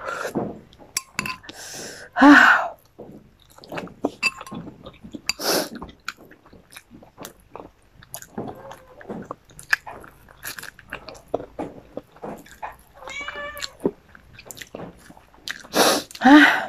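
A person chewing and smacking her lips close to the microphone, eating rice and grilled chilies from a spoon and by hand, with many small mouth clicks. A few short high-pitched calls break in, one about two seconds in, one about thirteen seconds in and a louder one near the end.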